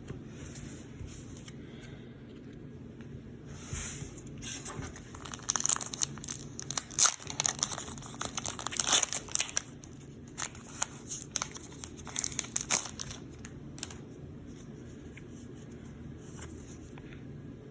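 A Pokémon trading card pack being opened by hand: the foil and plastic packaging crinkling and tearing in a run of sharp rustles that starts about four seconds in and stops around thirteen seconds.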